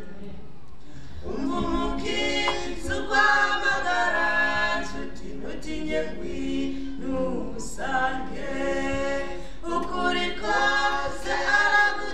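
Two men and a woman singing together through handheld microphones, in phrases of held notes; the singing comes in about a second in.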